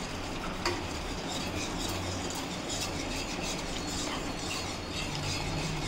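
A wire whisk stirring thickening custard in a pan, with soft scraping and one light tap under a second in, over a steady low hum.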